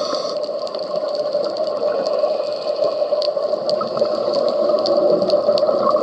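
Underwater ambient noise picked up by a diver's camera in its housing: a steady rushing hum with many short, sharp clicks scattered through it.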